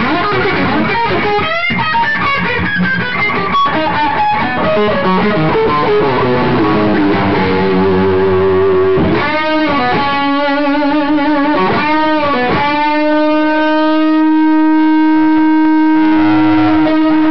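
Distorted electric guitar solo through an amplifier, played on a Les Paul-style guitar: a fast run of notes, then a few bent notes sliding up and down, then one long sustained note with vibrato held through the last few seconds.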